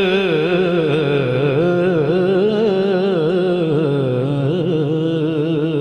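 A male naat reciter's voice holding a long, drawn-out sung note, its pitch wavering quickly in ornaments, at the end of a line of Urdu devotional verse.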